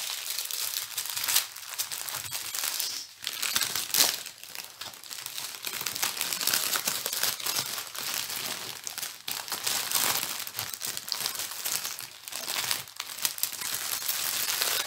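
Plastic packaging of a diamond painting kit crinkling and rustling as it is handled, with a few sharper crackles.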